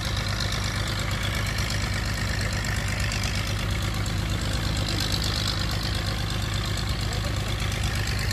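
Engine-driven water pump running steadily, a constant low drone with no change in speed.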